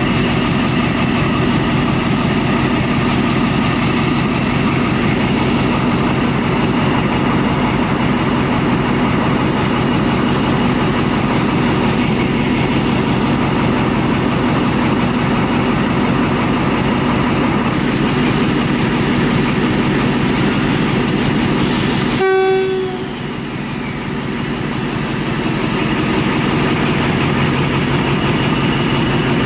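KTMB Class 24 Toshiba-built diesel-electric locomotive's engine running steadily. About two-thirds of the way through the engine sound drops suddenly with a brief pitched tone, then builds back up.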